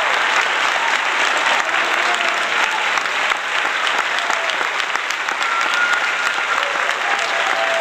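Crowd applauding: dense, steady clapping.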